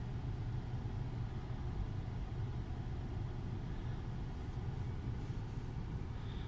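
Steady low engine hum of a car idling, heard from inside the stopped car's cabin.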